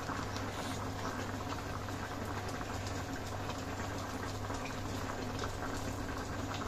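Chicken adobo sauce boiling in an uncovered pan, a steady fine bubbling crackle as the liquid reduces, over a steady low hum.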